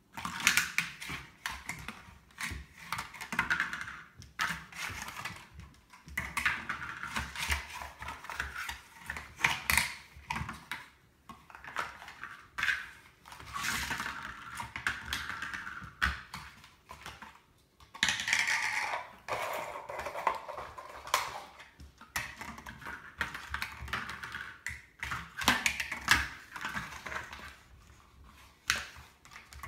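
Beagle puppy playing with toys on a hardwood floor: irregular bursts of crackling and clicking as a toy is mouthed, shaken and knocked about, with claws tapping on the boards.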